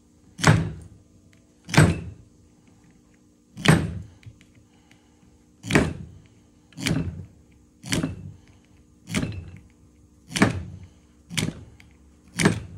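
Small screwdriver scraping between the copper commutator segments of a GM starter armature: about ten short scraping strokes, roughly one a second. This cleans out the slots so that neighbouring segments are not touching.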